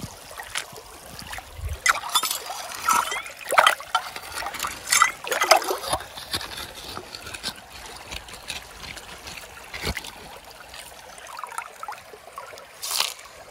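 Hand scoop digging gravel out of a crevice under shallow creek water: irregular scrapes of stones and splashes, thickest in the first half, with a couple of dull knocks and water trickling and dribbling throughout.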